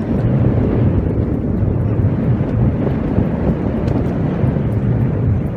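Wind buffeting the microphone with a boat's engine running underneath: a steady low rumble.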